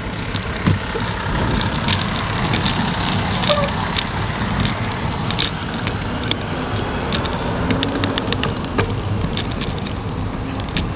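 Riding noise picked up by a handlebar-mounted camera on a moving bicycle: a steady rumble of wind and tyres on asphalt, with frequent sharp clicks and rattles as the bike goes over bumps.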